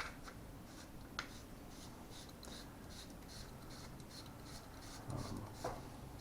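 Light handling of airsoft rifle parts: soft rubbing and scraping, with a sharp click about a second in and a short dull knock just after five seconds.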